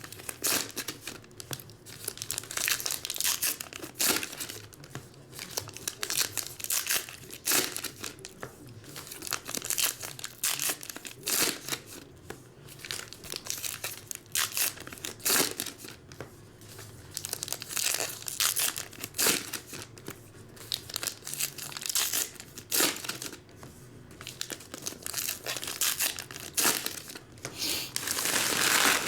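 2019 Topps Heritage Minor League card pack wrappers being torn open and crinkled in the hands, an uneven run of sharp crackles and rips.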